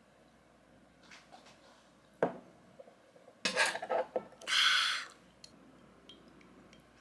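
A soju shot glass set down on a wooden table with a sharp click, then a few quick knocks and clatters, and a short, loud breathy exhale just after a shot of soju.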